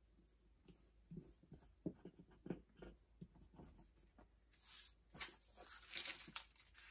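Soft taps and knocks of fingertips pressing a sticker down onto a paper planner page, then, from about four and a half seconds in, paper rustling and sliding as the loose planner page is lifted and moved.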